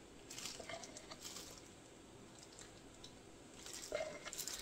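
Faint handling sounds of a silicone spatula and a clear plastic mixing cup worked with plastic-gloved hands while excess resin is scooped out of coaster moulds: soft scrapes, rustles and light clicks, in a cluster in the first second and again near the end.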